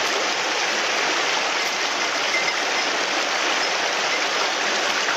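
Shallow, clear mountain stream running over stones in a riffle: a steady rush of water.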